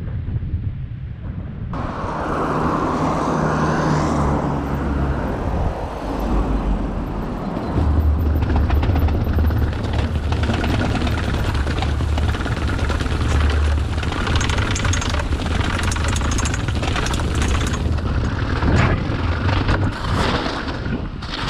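Wind buffeting the microphone of a bicycle-mounted camera, with the rattle and knocks of a bicycle riding over rough ground. It gets much louder about two seconds in.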